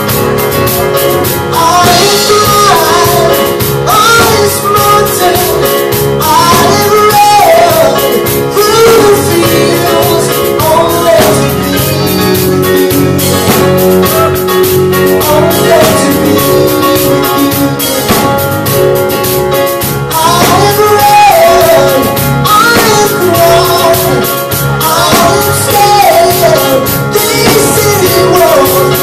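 Live band playing loudly, with drum kit and a voice singing over the instruments.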